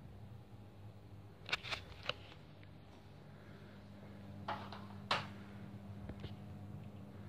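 A faint steady low hum with a few sharp clicks and knocks: three close together about a second and a half in, then two more around four and a half and five seconds in.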